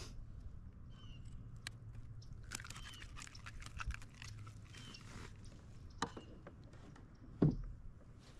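Rustling and scattered clicks of a redfish and lure being worked free of a landing net's mesh, with one sharp thump about seven and a half seconds in.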